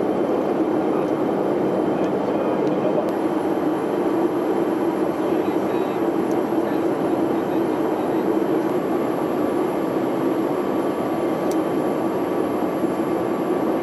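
Steady cabin noise inside an E-3 AWACS jet in flight: an even drone from the engines and airflow, with a constant low hum and a faint steady tone above it.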